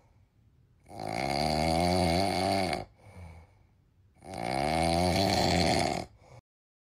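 Heavy snoring from a sleeper: two long snores about three seconds apart, each followed by a short, quieter breath.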